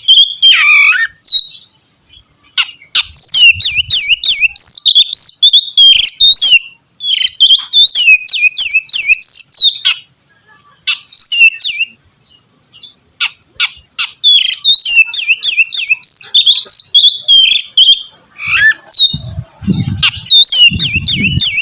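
Oriental magpie-robin (kacer) in full, loud song: fast runs of sweeping whistles and harsh scratchy notes in quick succession, broken by a few short pauses. Some dull low thumps near the end.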